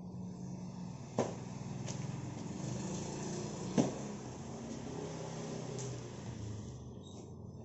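An engine running steadily, with two sharp knocks, about a second in and near four seconds in.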